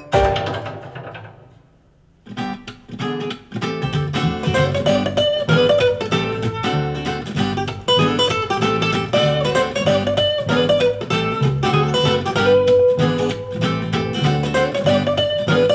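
Recorded music played back through Genelec M030 studio monitors and a 7040A subwoofer: one piece rings out and fades over the first two seconds, then after a brief gap a strummed acoustic-guitar track starts and carries on with a steady rhythm.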